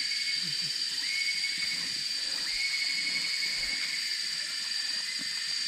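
Steady high-pitched drone of rainforest insects. A second, lower buzzing note sets in several times and holds for a second or so each time.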